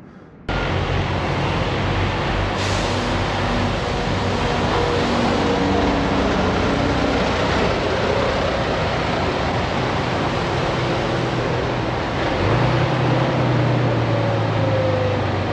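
Semi truck's diesel engine running as the tractor rolls slowly, under a steady roar of road and running noise. There is a brief hiss near the start, and the engine note grows louder and rises slightly about twelve seconds in.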